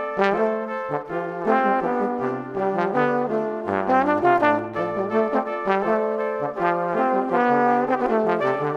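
Instrumental background music carried by brass-like tones: a melody of held notes changing every second or less over a moving bass line.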